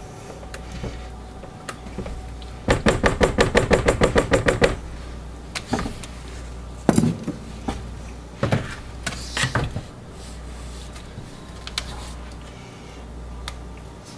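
Spatula knocking and scraping against the inside of a plastic mixing bucket while working thick soap batter: a quick run of rapid taps about three seconds in, followed by a few separate knocks. A steady low hum runs underneath.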